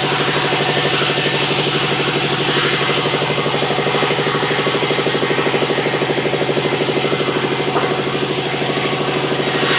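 Sawmill engine running steadily with a rapid, even pulsing beat and a hiss over it; the hiss grows louder just before the end.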